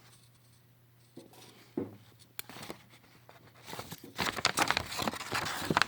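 A sheet of paper crinkling and rustling as it is handled. It starts as scattered rustles and grows into dense, loud crinkling over the last two seconds.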